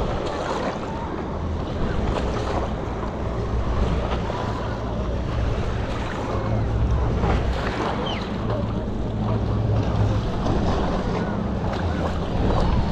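Water splashing and lapping around a stand-up paddleboard on the sea as it is paddled, with wind rumbling on the action-camera microphone.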